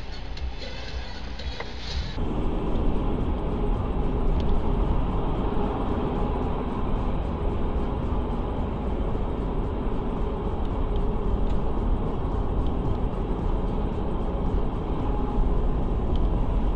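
Steady road and engine noise of a moving car, as picked up by a dash camera. It starts abruptly about two seconds in, replacing a quieter recording.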